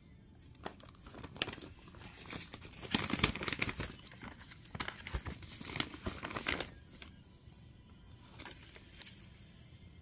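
Paper crinkling and tearing by hand as a paper blind bag is unwrapped, busiest and loudest around the middle, then a few lighter crinkles near the end.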